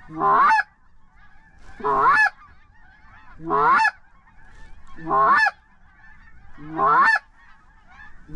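A goose honking over and over, about every one and a half seconds: five loud, nearly identical calls, each breaking from a low note up into a rising higher one. Fainter chatter of more geese continues between the calls.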